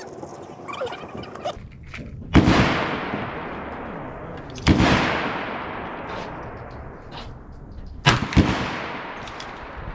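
Ruger Super Wrangler single-action revolver firing 45-grain .22 Winchester Magnum rounds: sharp shots a couple of seconds apart, each followed by a long echoing tail. Near the end a second report comes a fraction of a second after one shot.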